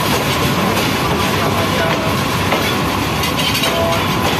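Bangladesh Railway intercity passenger coaches rolling past close by: a steady, loud rumble of steel wheels on the rails with clickety-clack over the rail joints.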